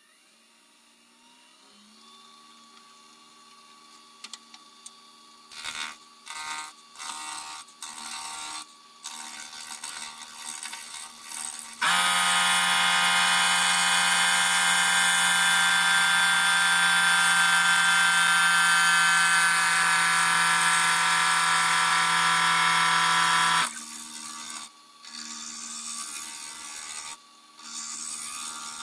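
Wood lathe spinning up, its motor hum rising in pitch and then holding steady, while a turning tool cuts the black walnut sphere. The cutting comes in short bursts at first, then runs continuously for about twelve seconds with a loud ringing tone, and breaks into short bursts again near the end.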